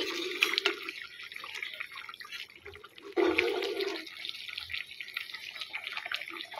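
A pot of rice-and-lentil khichuri boiling, with thick bubbles popping and plopping irregularly. There are two louder stretches, one at the very start and a stronger one about three seconds in.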